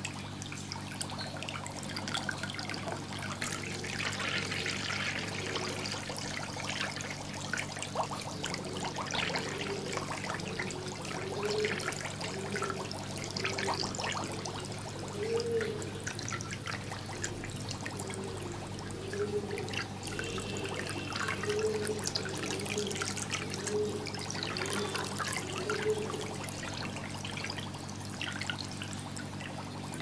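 Aquarium water trickling and bubbling from the tank's filter or air outlet, a continuous splashing with small bubbly clicks over a steady low hum.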